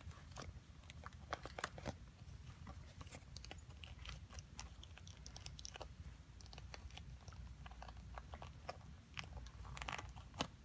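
Sneaker laces being pulled and threaded through the eyelets while lacing up a pair of Air Jordan Retro 5 basketball shoes: faint, irregular rustling and small clicks from the laces and shoe.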